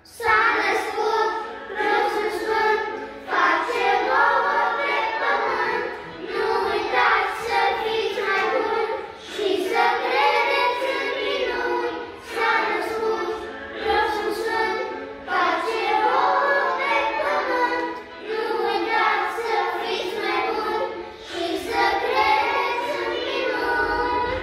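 A group of young children singing a Christmas carol together, in short phrases with brief pauses between.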